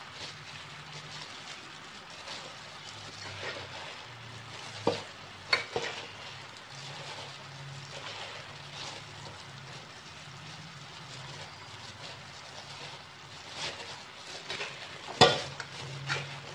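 Plastic food-prep glove rustling as a hand crumbles and mixes cooked rice in a rice cooker's inner pot, a steady crinkling scrape. A few sharp knocks against the pot, about 5 s in, again just after, and loudest about 15 s in.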